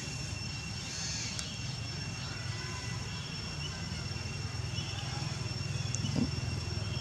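Outdoor ambience: a steady low rumble with two steady high-pitched whining tones over it and a few faint short chirps.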